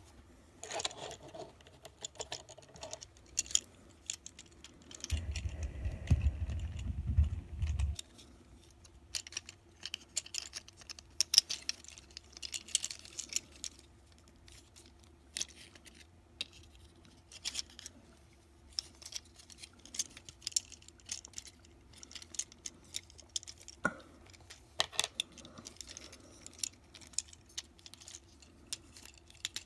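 Small plastic clicks and snaps of a Transformers Siege Chromia action figure's joints and parts being moved by hand during transformation. A low rumble of handling noise comes in about five seconds in and stops about three seconds later.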